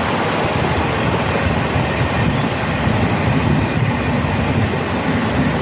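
River water rushing steadily down the steps of a fish ladder, a continuous even roar.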